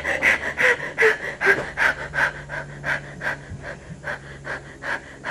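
A person panting hard and fast, about three breaths a second, with a few short whimpering sounds in the first second and a half.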